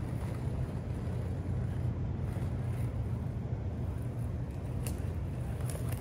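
Inline skate wheels rolling over brick pavers: a steady low rumble, with wind on the microphone and a couple of light clicks near the end.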